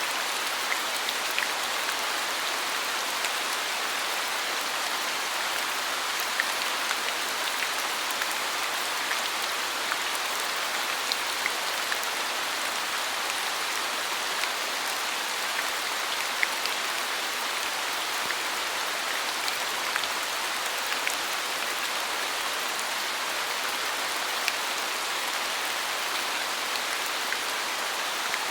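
Steady rainfall, an even hiss with scattered sharp ticks of single drops landing close by.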